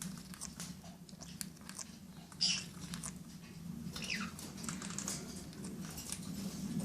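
Senegal parrots moving about in their cage: scattered small clicks and scratches, with a sharper scrape about two and a half seconds in and a short falling squeak about four seconds in, over a steady low hum.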